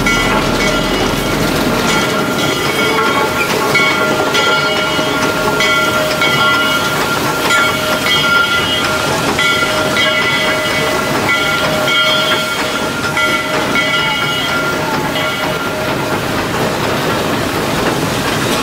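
Steam locomotive running slowly along the track, heard from its cab: a steady hiss of steam and rattle of the moving engine, with a steady high tone and a recurring high metallic ringing over it.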